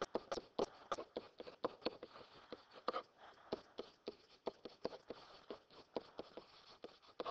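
Stylus tapping and clicking against a pen-input writing surface while handwriting is written out: quick, irregular taps, several a second.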